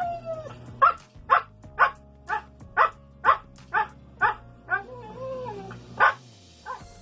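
Siberian husky barking out an answer to an addition flash card: a steady series of short barks, about two a second, with a brief warbling husky 'woo' a little after the middle.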